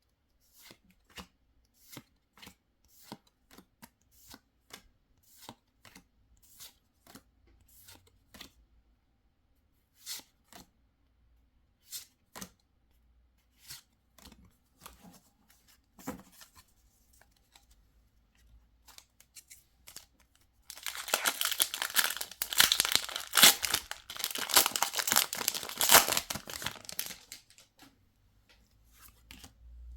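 Pokémon trading cards handled one at a time, a short light tick about every second. About twenty seconds in, a foil booster pack wrapper is torn open and crinkled for several seconds, louder than the cards.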